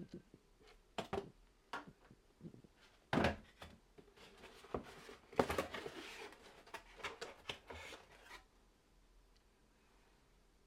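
Handling noises: scattered clicks, knocks and rustling as objects are picked up and moved, dying away for the last couple of seconds.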